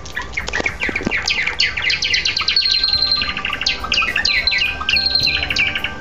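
Java sparrow song: a fast run of clicking, chirping notes that sweep downward, broken twice by a long held high note, about two and a half seconds in and again near five seconds.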